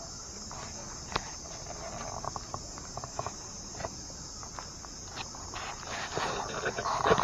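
A steady high insect drone, like crickets, with scattered light taps and clicks; the knocks come thicker and louder near the end.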